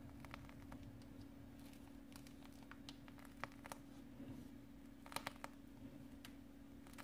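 Near silence over a steady low hum, with scattered faint clicks and crinkles and a small cluster of them about five seconds in: a plastic piping bag being squeezed and handled while piping whipped-cream rosettes.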